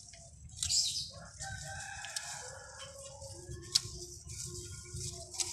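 A rooster crowing: one long drawn-out call that drops in pitch, then trails off into a lower held note with breaks. A short rustle comes about a second in, and a sharp click near the middle.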